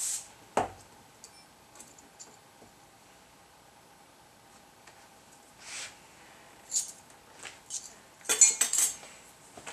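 Metal measuring spoon clinking against glass measuring cup and bowl in scattered light taps, with a quick run of clinks near the end. A dull knock about half a second in, as the salt canister is set down on the counter.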